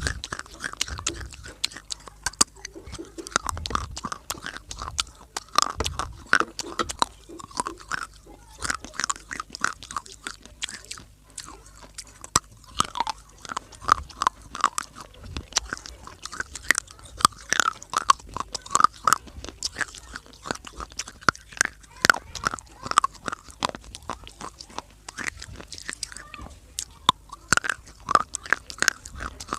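A person biting and chewing pieces of dry clay close to the microphone: a dense, irregular run of sharp, brittle crunches with wet mouth sounds between them.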